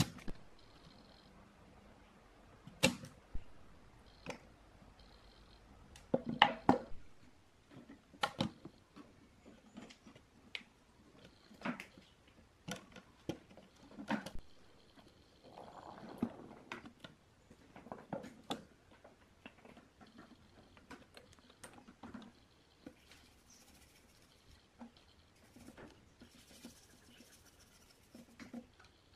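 Irregular light knocks and clicks of components being handled on a wooden workbench, as large can-type electrolytic capacitors are picked up and set down on a circuit board. A louder cluster of knocks comes about six seconds in.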